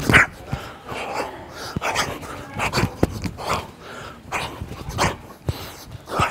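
A boxer's short, sharp exhalations with his punches while shadowboxing, coming in quick irregular bursts about one or two a second, with a few soft thumps between them.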